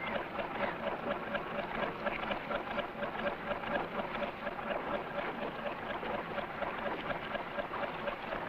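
Cray fishing boat's engine chugging steadily with a rapid, even beat.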